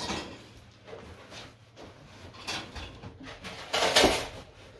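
Large floor cushions handled and stood on end against a wall: a short knock at the start, soft rustling, then a louder thud and rustle about four seconds in as one is set down.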